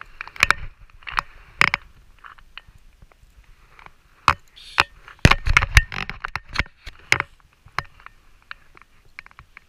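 Close handling noises as fingers rig a hook and lure on fishing line: scattered sharp clicks and scrapes, with a louder cluster of rubbing knocks about five to six and a half seconds in.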